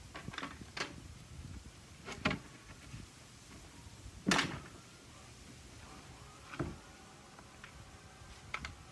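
Scattered knocks and clatters of a plywood sheet and an aluminium guide rail being handled on a wooden workbench, about six in all, the loudest about four seconds in as the sheet is lifted on edge and set down.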